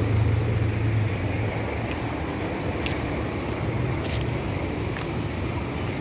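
Road traffic: a vehicle engine's low hum, strongest over the first second or so and then fading into steady traffic noise, with a few faint sharp ticks in the middle.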